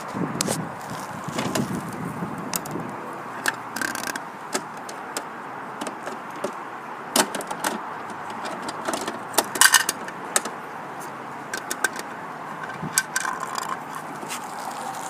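Scattered plastic clicks and clatters of a toy garbage truck's bin lifter and toy wheelie bins being handled, over steady outdoor background noise; the loudest cluster of clicks comes about ten seconds in.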